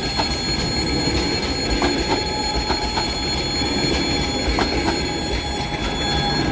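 Passenger coaches of a long-distance train rolling past at speed: a steady rumble of wheels on rails with irregular clicks, and a steady high-pitched tone over it.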